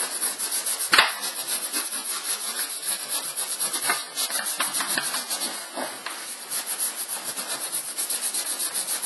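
Cloth rubbed briskly back and forth over a velvety-finish leather handbag to work in leather-cleaning cream: a fast scratchy rhythm of several strokes a second. A single sharp knock sounds about a second in.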